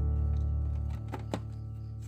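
Background music with guitar, held notes dying away, with the low note ending about a second in. Two short clicks come just after that.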